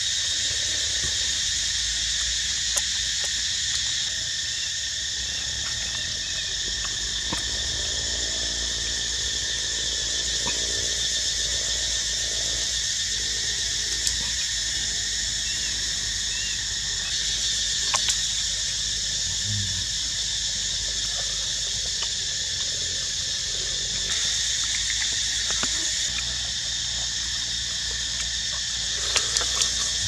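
Steady high-pitched drone of a forest insect chorus, unchanging throughout, with a few small clicks from hands handling food.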